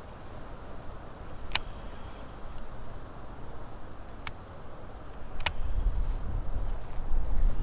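Gusty wind buffeting the microphone, a low rumble that grows much louder about two-thirds of the way through. Three sharp clicks sound along the way.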